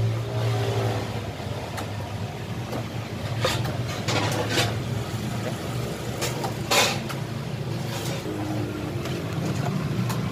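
Road traffic: vehicle engines running as a steady low hum, with a few brief hissing noises from passing vehicles.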